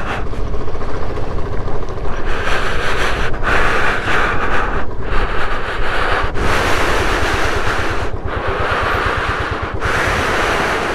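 Wind rushing over the microphone, swelling and dropping away several times, with a motorcycle engine running underneath.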